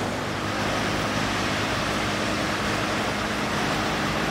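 MAN concrete mixer truck driving by, its diesel engine running steadily under an even rushing road and wind noise.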